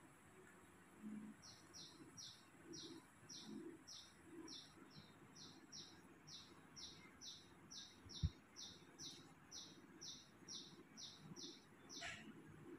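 A bird calling in a long, steady series of short high chirps, about two a second, faint. A single low thump about eight seconds in.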